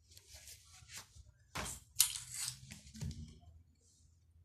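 Close rustling and handling noise with a few sharp clicks and knocks, about a second and a half, two and three seconds in: a child handling small things close to the phone.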